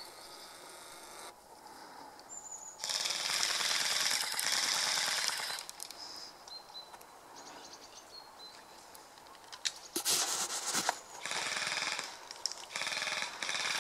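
Airsoft rifle firing rapid bursts of shots: one long burst of about two and a half seconds a few seconds in, then several shorter bursts in the last four seconds.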